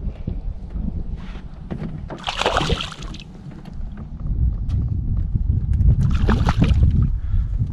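Water sloshing against a small fishing boat, with a brief splash about two and a half seconds in, over a steady low rumble.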